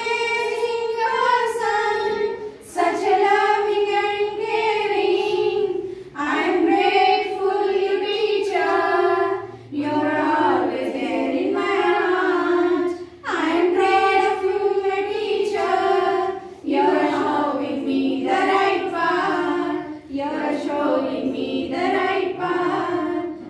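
A group of women singing a song together, in phrases of about three to four seconds with short breaks between them.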